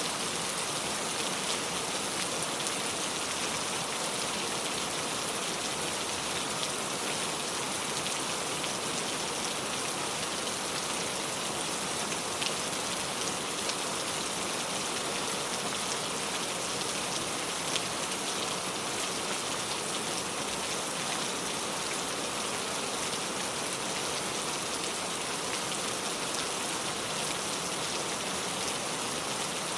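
Steady rain falling: an even hiss with the patter of individual drops, no thunder.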